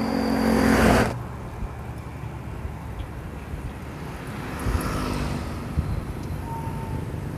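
Road traffic heard from the roadside on a ride: a motor vehicle passes about halfway through, over a steady low rumble of road noise. A louder rush of noise in the first second cuts off abruptly.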